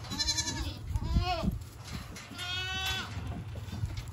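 Goats bleating: three bleats in about three seconds, the second arching up and down in pitch, the last one longer and wavering.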